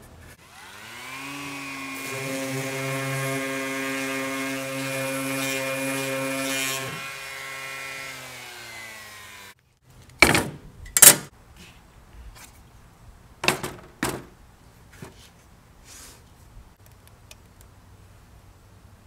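A power tool's electric motor spins up with a rising whine, runs steadily for several seconds, then slows and fades. After that come a few sharp knocks and clatters of wooden boards being set down and shifted on a steel table.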